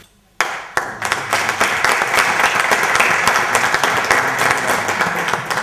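Audience applauding, breaking out suddenly about half a second in and going on as steady, dense clapping.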